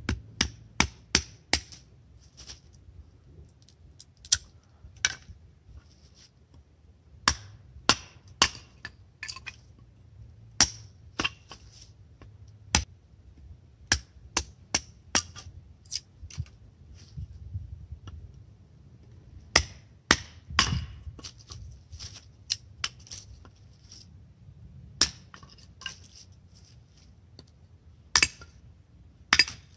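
Hatchet splitting kiln-dried pallet board into kindling: a long run of sharp, irregular wooden knocks and cracks, now and then two close together.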